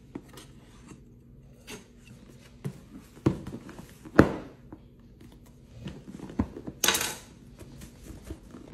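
Cardboard product box handled and turned over on a hard countertop: a series of knocks and taps, the loudest about four seconds in, and a short scraping rub about seven seconds in.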